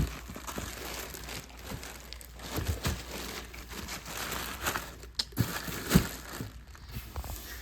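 Packaging crinkling and rustling while boxed ceiling-fan parts are handled, with a few light knocks and clicks, the sharpest about five to six seconds in.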